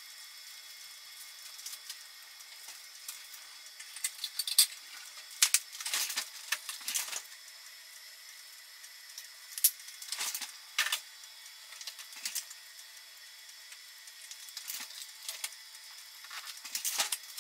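A steamer pot on the boil over a homemade aluminium-can alcohol stove: irregular bursts of light clicking and crackling over a faint steady hiss.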